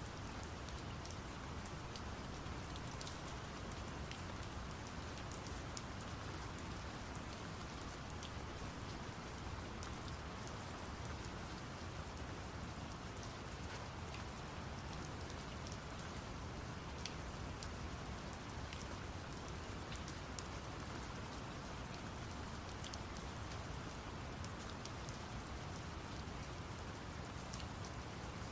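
Steady rain falling, with scattered drops pattering over a deep, even rumble of brown noise.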